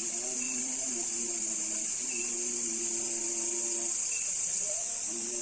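A strange low buzzing drone beside a fish pond, made of several held tones that run in stretches of a second or two with short breaks and small shifts in pitch. It carries over a steady high hiss, with faint short chirps about once a second.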